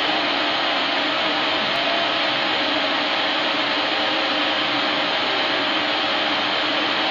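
Epilog Mini 24 CO2 laser cutter running while it cuts 3 mm wood: a steady rush of moving air from its exhaust and air-assist blowers, with a faint hum underneath.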